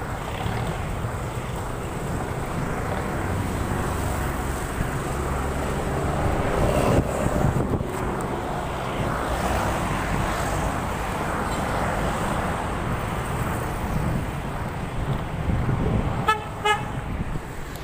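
City street traffic: engines of cars and trucks running past, louder as a vehicle goes by close about seven seconds in, with a short vehicle horn toot near the end.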